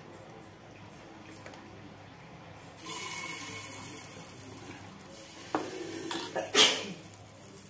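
Egg batter hitting the hot oil in an appe (paniyaram) pan, sizzling suddenly about three seconds in and then fading. Two sharp knocks follow near the end, the second the loudest.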